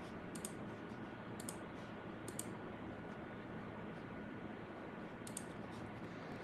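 Computer mouse clicking: about six short, sharp clicks, several in quick pairs, over a faint steady background hiss.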